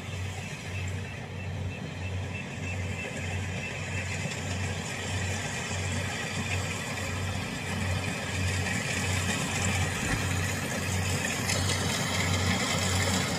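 Kubota DC-70 rice combine harvester running as it cuts rice, its engine getting louder as it comes closer. A low hum throbs about twice a second.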